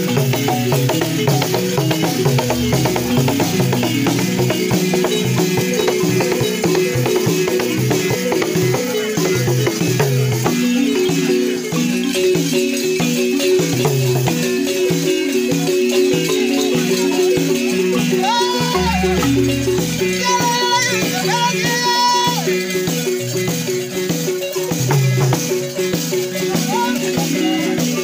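Balafon music: wooden xylophones with gourd resonators play a fast repeating pattern, with drums beating along and a constant rattling. A few short high notes rise and fall about two-thirds of the way through.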